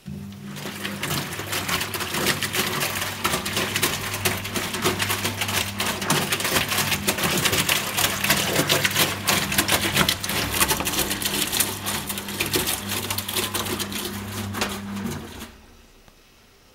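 Kinox 5 top-loading washing machine running its prewash: the drum motor hums steadily while the turning drum rattles with rapid clicking. About fifteen seconds in, the motor stops and the rattle dies away.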